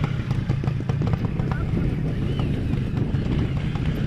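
Trials motorcycle engine running at low revs as the bike climbs slowly over rock, with scattered knocks and clicks throughout.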